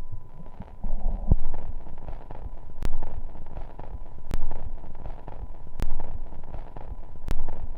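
Steady muffled rain with no music, under a low rumble that swells about every second and a half, each swell marked by a sharp click.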